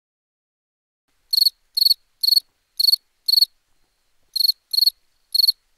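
Cricket chirping: short, clean chirps about two a second, starting about a second in out of dead silence, with a brief pause midway.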